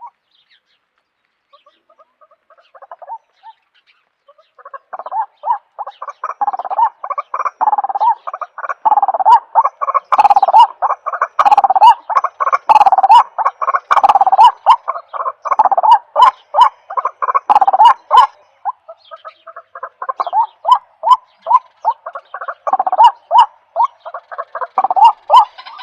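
An animal calling in a fast run of short, rasping notes. The calls start sparse, become dense after about five seconds, pause briefly about two-thirds through, then go on in evenly spaced notes.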